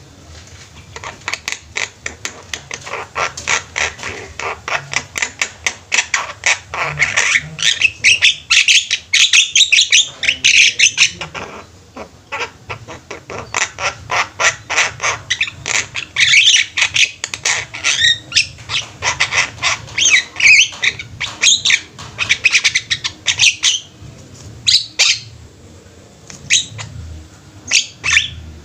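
Javan mynas calling in long, fast runs of loud notes: two long bouts with a short pause about twelve seconds in, then scattered calls near the end.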